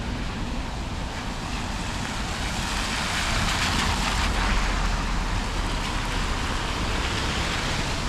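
A vehicle's tyres hissing on wet pavement as it passes in the rain, swelling in the middle and easing off toward the end, over a steady low rumble.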